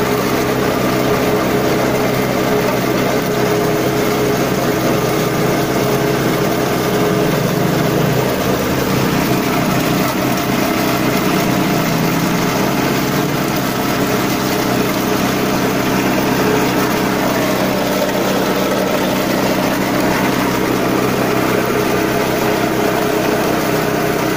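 Small engine-driven coffee pulper running steadily at a constant speed as fresh coffee cherries are fed through it.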